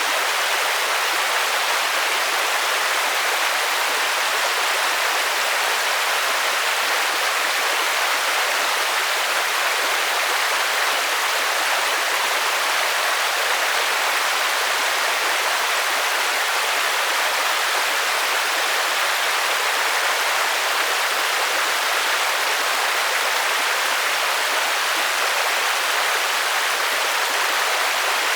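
Steady rain: an even hiss with no single drops standing out and little low rumble.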